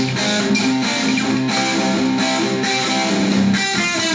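Outro music: a guitar-driven rock track with strummed guitar and a steady beat.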